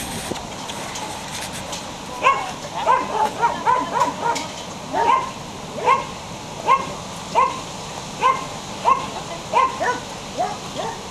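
Belgian Shepherd puppy yelping and whining: a dozen or more short, high calls, starting about two seconds in as a quick cluster, then settling into a regular string of single yelps a little under one a second.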